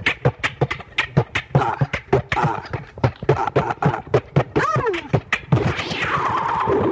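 Beatboxing on an underground hip-hop tape recording: quick, irregular mouth-made clicks and snares, with a short pitched vocal sound near the middle. About two-thirds in it gives way to a steady hiss that sweeps down and back up in pitch.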